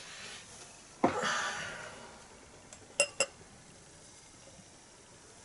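A 330 ml beer can opened by its ring pull about a second in: a sharp crack followed by a short hiss of escaping gas that fades within a second. About two seconds later come two quick, ringing glass clinks.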